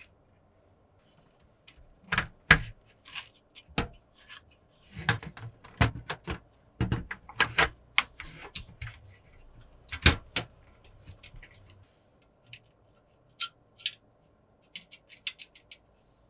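Hardware being handled during a PC cooler swap: a run of irregular clicks, taps and knocks, thick for the first ten seconds or so, then a few light scattered clicks near the end.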